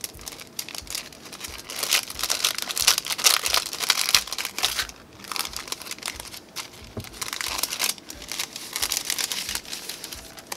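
Clear cellophane packet crinkling as it is unsealed and pulled open by hand, with a dense crackle that is loudest from about two to four and a half seconds in.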